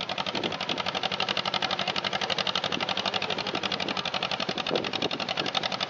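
Engine of a small John Deere crawler tractor running hard under load as it pulls a weight-transfer sled, a rapid, even pulsing beat.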